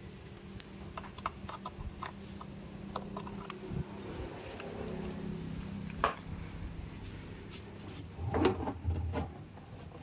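Electric water pump running with a steady low hum, with scattered clicks and knocks, the loudest about six seconds in.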